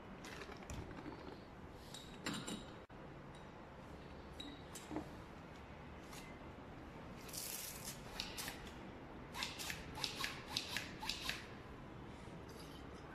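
Small handling sounds of laboratory glassware at a bench: scattered clinks and knocks as flasks are moved, a brief hiss about seven seconds in, and a quick run of about eight small clicks around ten seconds in.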